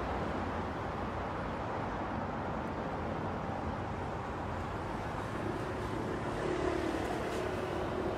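Steady road and tyre noise of a car driving at speed, heard from inside the cabin. A faint steady hum joins in about five seconds in, and the noise swells slightly.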